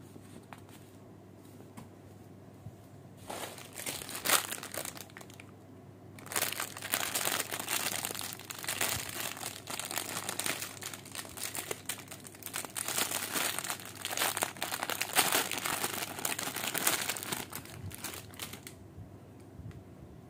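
Packaging being handled and crinkled: a few short bursts of crinkling, then about twelve seconds of continuous crinkling that stops near the end.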